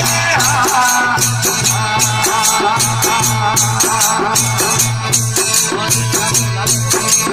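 Desi bhajan music: a fast, even jingling percussion rhythm over a low pulsing bass tone, with a wavering melody line that is strongest in the first second.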